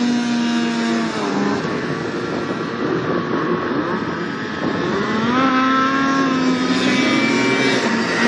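Snowmobile engine running at high revs as the sled skims across open water, the pitch held high, easing off about a second in, then climbing and holding high again from about five seconds in.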